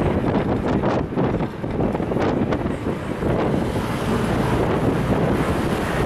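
Mitsubishi city bus under way with its windows open: air rushing in through the open window over the bus's engine and road noise. The noise eases off briefly about a second in.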